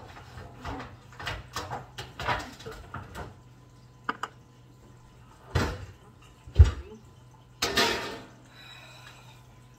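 Kitchen handling noises, someone getting a pan out of a cupboard: a run of small clicks and rustles, then a knock, a heavy thump a little past the middle, and a short rush of noise soon after.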